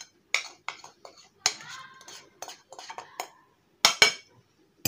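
A glass jug and kitchenware clinking and knocking as they are handled and set down: about ten irregular sharp clicks, some with a short ring, the loudest two close together near the end.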